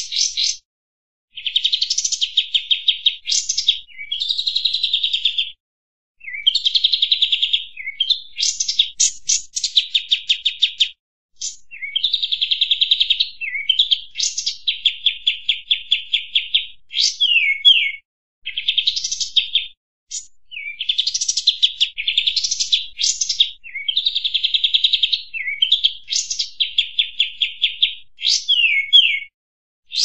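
Recorded song of the bird sold in Indonesia as 'kampas tembak', played as a training and luring recording: high-pitched rapid trills and rattles in phrases of a second or two, separated by short gaps, some ending in quick downward sweeps.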